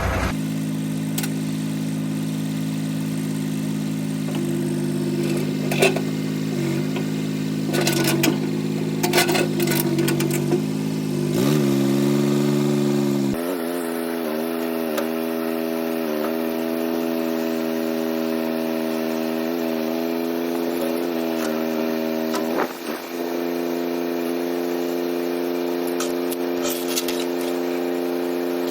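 Old Ford backhoe's engine running steadily. About halfway through, its pitch rises and then holds higher, as when the engine is throttled up for work. Several sharp clanks sound in the first half.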